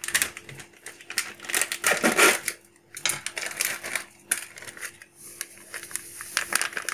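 Plastic-foil sachet of whipped-cream powder crinkling as it is squeezed and shaken, in irregular crackly bursts, while the powder is emptied into a glass bowl.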